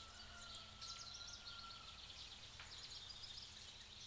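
Faint outdoor ambience of small birds chirping in the trees, in short high clusters, with a thin steady whistle-like tone in the first half.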